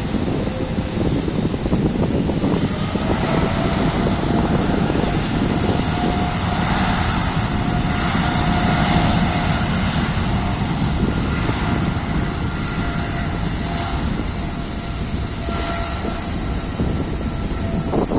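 Aircraft engines running through a take-off: a steady, heavy rumble with faint thin whining tones above it.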